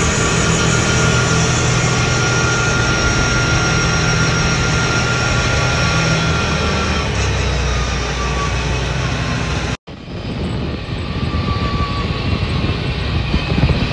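Off-road buggy's engine running steadily at road speed, with wind rushing past; the engine note drops about seven seconds in. The sound cuts out for an instant about ten seconds in, then the engine and wind carry on.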